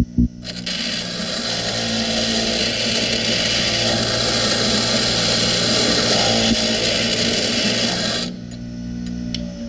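Power grinder with a grinding wheel grinding down an aluminum weld to round it off and clean it up. It runs for about eight seconds and cuts off a little after eight seconds in, with a loud knock just at the start.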